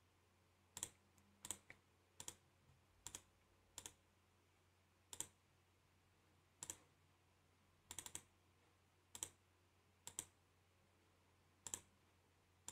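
Faint computer mouse clicks, a dozen or so at irregular intervals of about a second, many in quick pairs, with a faint steady hum underneath.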